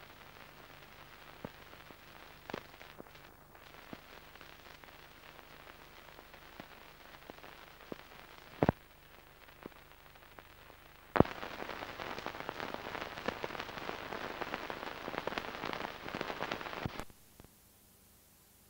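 Crackling and clicking noise on an old videotape's soundtrack after the programme has ended. A faint crackle with scattered clicks and two sharp clicks about 9 and 11 seconds in is followed by louder, dense crackling for about six seconds, which cuts off suddenly near the end.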